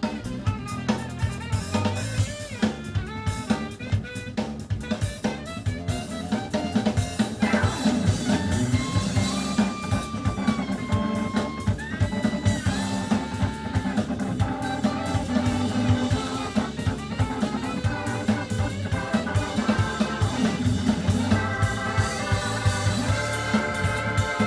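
A band recording played back over studio monitors: a full drum kit keeping a steady beat under bass and a gliding melodic lead line, with held organ chords coming in a few seconds before the end.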